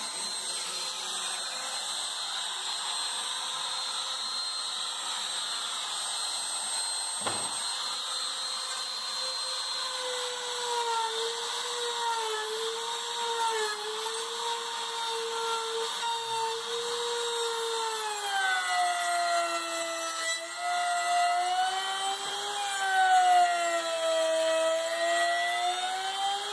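Makita trim router running and cutting a groove along the edge of an MDF panel. Its motor whine is steady at first, then wavers and dips in pitch as the bit bites into the cut, and grows louder in the second half.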